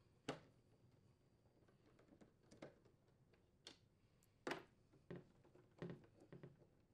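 Faint, scattered clicks and taps of a nut driver and small screws against a plastic ice maker cover as the screws are unthreaded, about ten in all, the loudest about halfway through.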